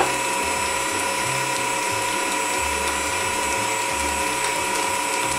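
Electric stand mixer running steadily, its motor and gearbox giving an even mechanical whine with a constant high tone, as it beats a butter, sugar and egg batter.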